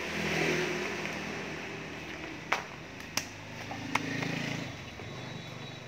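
A motor vehicle engine droning, swelling twice, with three sharp knocks in the middle.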